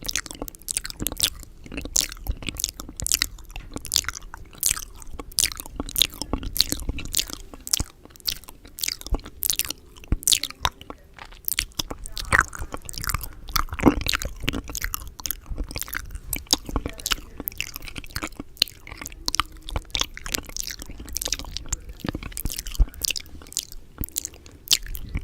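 Close-miked ASMR mouth sounds: quick, irregular wet clicks and smacks of tongue and lips, several a second, one after another.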